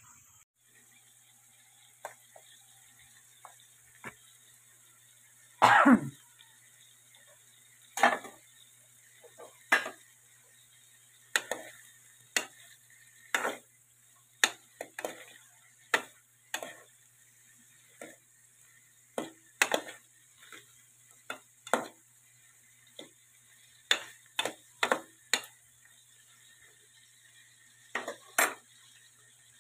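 Metal ladle stirring shrimp in an aluminum pot: irregular clinks, knocks and scrapes of metal on metal, the loudest about six seconds in.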